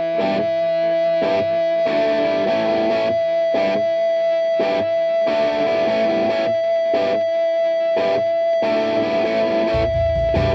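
Rock song intro on distorted electric guitar: chords struck at uneven intervals over one high note held throughout, with a heavy low end coming in near the end.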